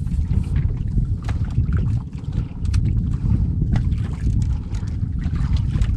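Small boat on the water with a steady low rumble of wind buffeting the microphone, broken by a few light knocks and splashes.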